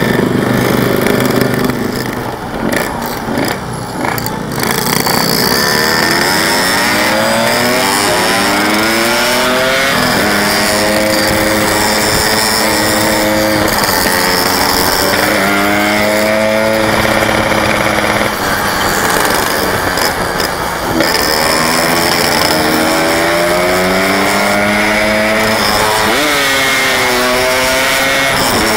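Yamaha RX-King 135cc single-cylinder two-stroke motorcycle engine accelerating through the gears: the pitch rises, drops back at each gear change, and rises again, several times over.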